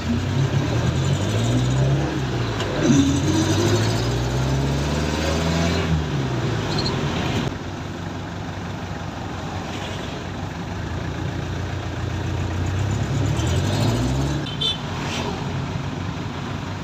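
Passenger jeepney's diesel engine heard from inside the passenger cabin while driving, its pitch climbing and dropping several times as it speeds up through the gears and slows again.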